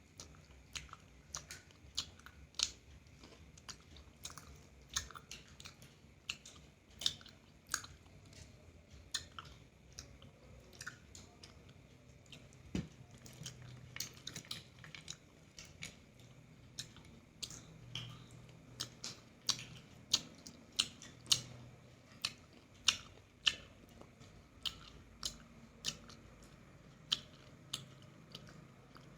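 A person chewing and biting roasted chicken close to the microphone: many short, irregular clicks and smacks, a few each second.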